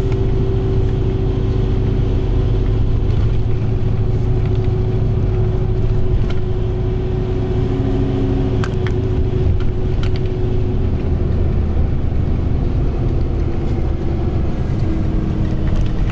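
Tour bus cabin on the move: a steady low engine and road rumble with a faint steady whine above it, and a few light ticks and rattles.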